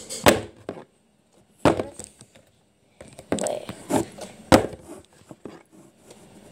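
A plastic water bottle being flipped and landing on a table: several sharp knocks and thuds a second or so apart.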